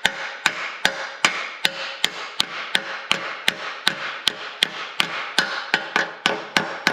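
Rawhide mallet tapping a ball bearing onto a John Deere BN tractor's PTO pinion shaft, a steady run of about three even taps a second, driving the bearing up to the shaft's shoulder.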